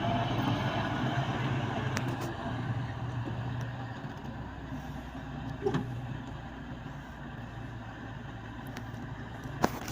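A motor vehicle driving along a road: a steady engine hum and road noise, with a few sharp knocks.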